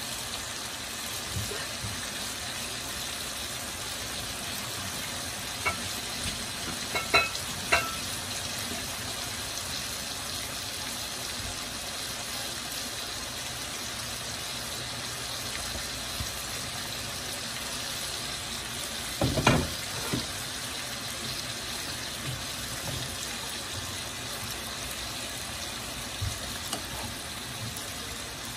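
Green beans and sliced onion sizzling in oil in a frying pan: a steady frying hiss, with a few sharp clicks about seven seconds in and a louder knock about two-thirds of the way through.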